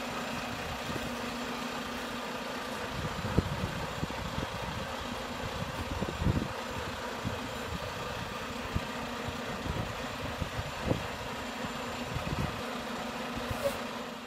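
Diesel engine of a Volvo VNL 760 semi truck running at low speed as the truck rolls slowly by: a steady drone with uneven low rumbles underneath.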